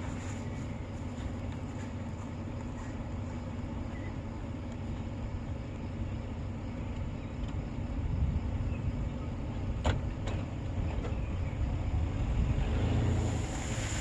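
Chevrolet S10 pickup truck's engine running steadily as the truck drives slowly, towing a fence-and-log drag over a seeded field. A single sharp click comes about ten seconds in, and the engine gets louder near the end.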